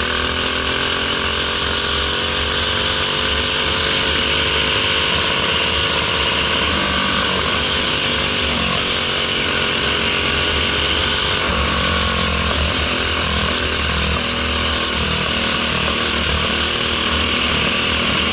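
Briggs & Stratton LO206 four-stroke single-cylinder kart engine running at racing speed, heard from onboard the kart, its note rising and dropping as the throttle comes on and off through the corners.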